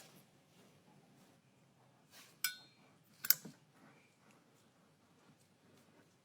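A few sharp clicks of small hard objects, the ones a little after two seconds and three seconds in carrying a brief ringing tone.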